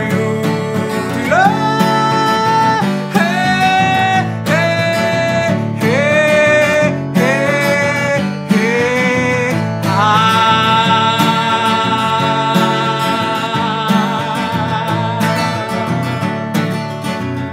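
A man sings a melody of about six short notes, each sliding up at its start, then holds one long note with vibrato for about five seconds, over a strummed acoustic guitar.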